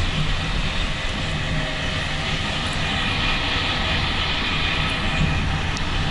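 Steady running noise of a moving vehicle: a low rumble under a broad, even hiss.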